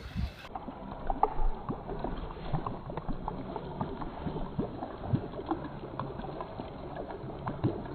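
Quiet sounds in a small wooden boat on a river: scattered light knocks and clicks over a low, even background.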